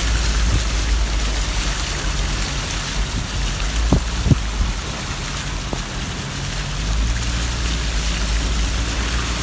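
A car driving on a flooded, rain-soaked road in heavy rain, heard from inside the car: a steady hiss of rain and tyres on water over the low rumble of the car. There are a couple of short squeaks about four seconds in.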